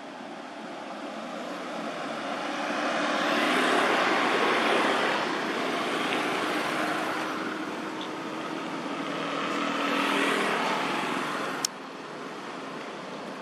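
Road traffic: vehicles passing on a nearby road, the noise swelling and fading twice, loudest about four seconds in and again about ten seconds in. Near the end a sharp click, after which the sound drops abruptly.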